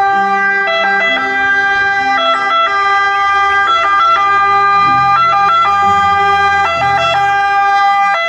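Ambulance siren sounding in held tones that step up and down between pitches rather than gliding.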